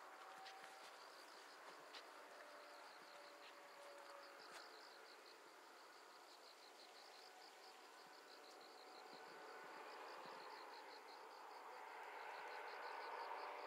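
Faint, steady chirping of a cricket: a high trill pulsing evenly several times a second without a break, with a few soft footsteps in the first seconds.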